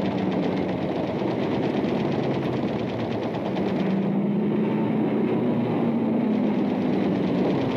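Piston aircraft engines droning steadily, with a fast, even pulsing running through the sound. The pitch sags slightly about a third of the way in, then climbs again.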